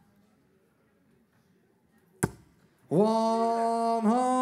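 A steel-tip dart strikes the Winmau bristle dartboard with a single sharp thud about two seconds in, landing the third dart in treble 20 for a 180. About a second later the caller starts a long, drawn-out 'one hundred and eighty' call, its held pitch stepping up twice.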